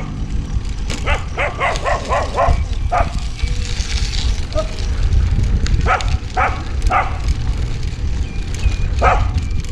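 A dog barking at a passing road bike: a quick run of barks, then single barks spaced out. Underneath is a heavy rumble of wind on the camera microphone from riding.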